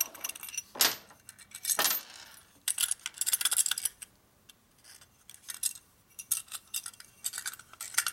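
Small metal carburetor parts clicking and clinking as the float bowl of a Linkert carburetor is taken apart by hand and its pieces are set down on a metal workbench, with two louder knocks about one and two seconds in.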